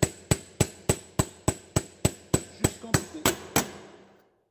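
Hammer tapping on a long steel socket set over a bearing, driving the new bearing onto a Bosch alternator's rotor shaft: a rapid, even series of light metallic taps, about three and a half a second, each with a short ring. The taps stop a little before the end.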